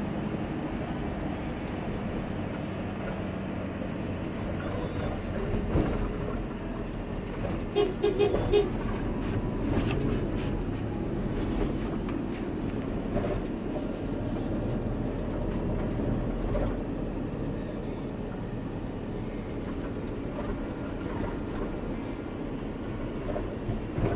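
Road noise inside a moving vehicle's rear cargo area: a steady low rumble of engine and tyres, with a brief cluster of clicks and rattles about eight seconds in.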